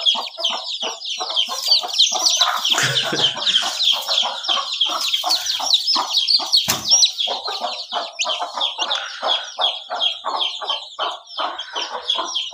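A brood of young chicks peeping in quick, high-pitched chirps without a break, over the low, repeated clucking of the mother hens, several clucks a second. A single knock about seven seconds in.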